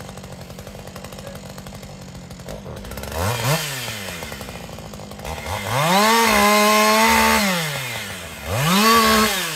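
Chainsaw engine idling, then revved up three times: a short blip, a longer run held at high revs for about two seconds, and another rise and fall near the end.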